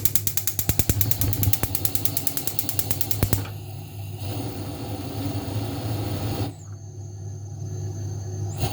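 Gas stove's spark igniter ticking rapidly for about three seconds, then stopping as the burner lights, leaving a low steady sound. A single click comes near the end.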